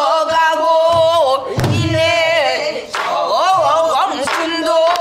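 A woman sings pansori-style in a strong voice, holding long notes with wide vibrato, and accompanies herself on a buk barrel drum, which gives a few low beats under the singing.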